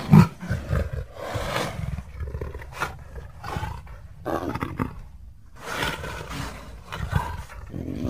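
Leopard roaring and growling: a loud roar right at the start, then a string of shorter growling calls about every second, over a low rumble.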